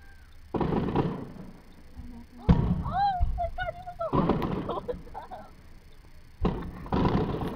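Aerial fireworks shells bursting at a distance: about five booms a second or two apart, each with a rolling rumble, the loudest about two and a half seconds in.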